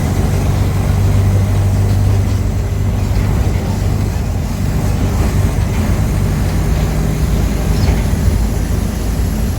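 Mercedes-Benz OF-1418 bus's diesel engine running with a steady low drone.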